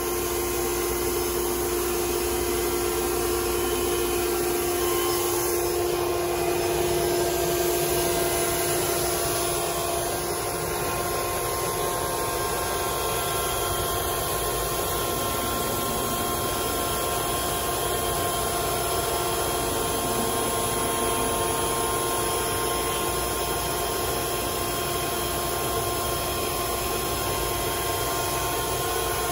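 Flatbed CNC router running, its spindle cutting a black sheet as the dust-shoe head moves over it. The sound is a steady whine of several tones over a constant rush of noise.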